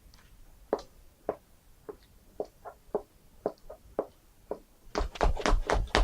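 A series of sharp knocks, one roughly every half second, then from about five seconds in a fast, dense run of them.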